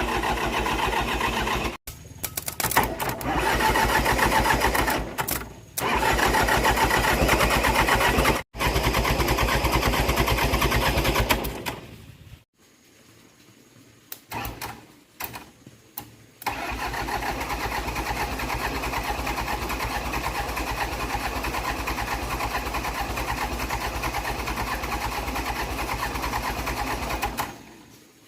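Old tractor engine starting and running in several short cuts, with a quieter stretch about twelve seconds in, then running steadily for about ten seconds before cutting off suddenly.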